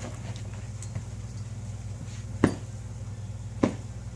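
Two sharp clinks about a second apart over a steady low hum.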